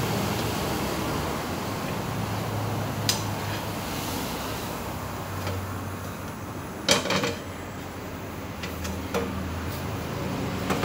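Metal spatula and iron griddle knocking and clattering as a pancake is lifted off the pan: a few sharp knocks, the loudest about seven seconds in, over a steady low hum.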